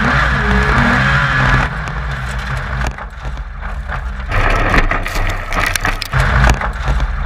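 Small rallycross kart's engine running hard on a loose dirt and gravel track, with many sharp clicks and knocks of gravel and stones hitting and rattling the chassis. The sound changes abruptly a few times as the car is heard from onboard and from trackside.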